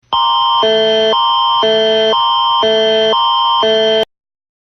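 Canadian Alerting Attention Signal (Alert Ready tone): a loud electronic alert that switches every half second between a higher and a lower chord over a constant high tone. It runs for about four seconds and then cuts off suddenly.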